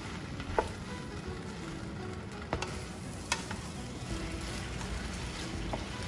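Udon noodles, pork and greens sizzling in a frying pan as they are stirred with a wooden spatula, with a few sharp taps of the spatula against the pan.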